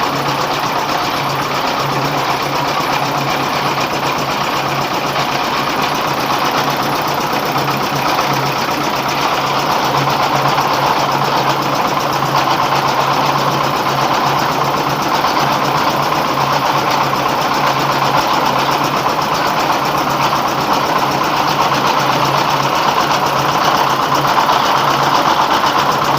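Rice milling machine driven by a 24 hp dompeng diesel engine, running steadily under load: a low, even engine drone under a loud, continuous rushing hiss from the milling machinery.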